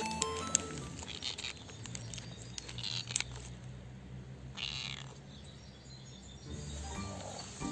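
Cat purring steadily, with a brief rustle about five seconds in.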